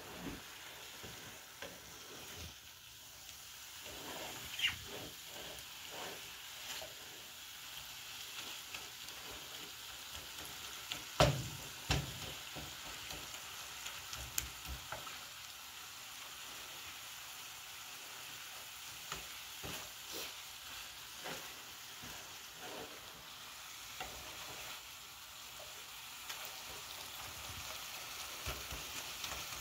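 Ground beef sizzling in a frying pan while a plastic spatula stirs and breaks it up, scraping and tapping against the pan. The knocks come scattered through the steady sizzle, the loudest two about 11 and 12 seconds in.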